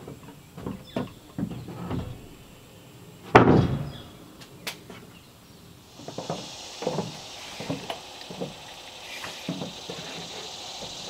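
Footsteps and knocks on a wooden plank deck, with one loud wooden thud about three and a half seconds in as a long board comes down on the deck. About six seconds in, a steady high insect buzz starts under the footsteps.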